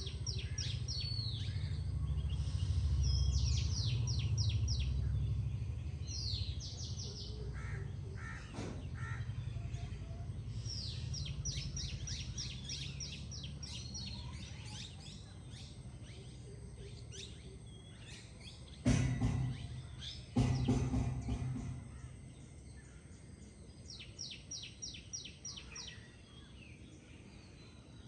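A songbird sings fast trilled phrases again and again over a low steady rumble. About two-thirds of the way in come two loud, harsh bird calls a second and a half apart.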